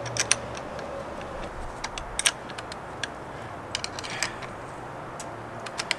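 Scattered short metallic clicks and clinks of a hand wrench working on a car battery's fittings as the new battery is tightened down, a few at a time at irregular spacing.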